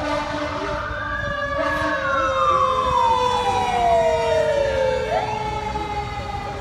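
Fire engine siren wailing as it approaches: one slow rise and a long fall, then starting to climb again about five seconds in, with a second steady tone sounding under it.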